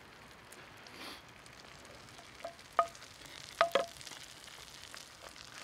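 Pita breads frying in butter in a cast-iron pan: a faint steady sizzle, with a few sharp clinks around the middle.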